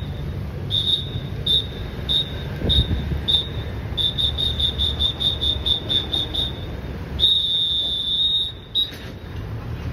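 A firefighter's guiding whistle blown as signals to a reversing fire-department van. It gives spaced short blasts, then rapid pips about three a second, then one long blast near the end, over the low running of the van's engine.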